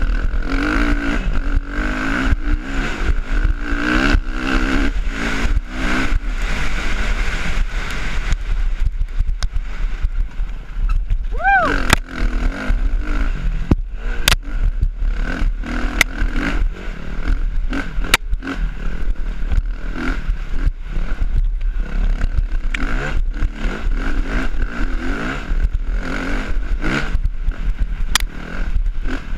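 Dirt bike engine running and revving as it rides a rough trail, the pitch rising and falling with the throttle, with sharp knocks and clatter now and then from the bike jolting over bumps.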